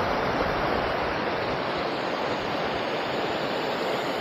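Steady rushing wind noise on the microphone of a camera carried on a moving bicycle.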